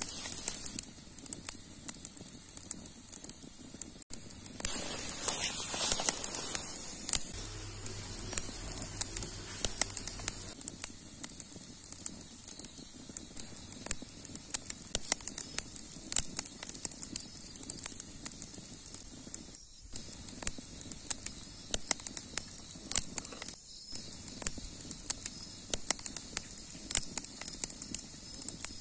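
Wood campfire crackling, with frequent sharp snaps and pops over a steady high hiss. Near the start, hands rustling through grass and shrubs.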